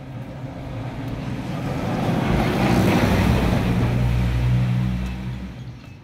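A motor vehicle's engine passing by. It swells over the first couple of seconds, holds at its loudest with a steady low drone, then fades away near the end.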